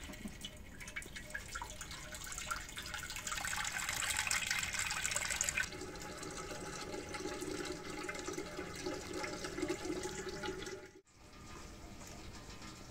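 Water from a tap running into a clay pot standing in a steel sink, the splashing growing louder as the pot fills, then cutting off abruptly about halfway through. A quieter, steady low sound follows.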